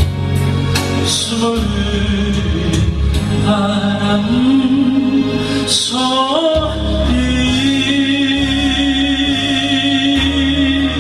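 Music with singing: the accompaniment of a slow Korean ballad under a long held note that slides upward partway through and then holds steady.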